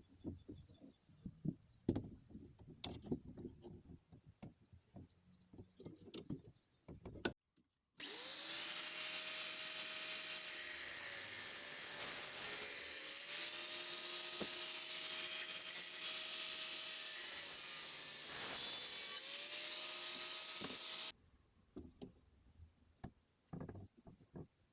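Knocks and clatter of handling, then an angle grinder running at full speed for about thirteen seconds, its whine sagging in pitch twice under load before it cuts off abruptly.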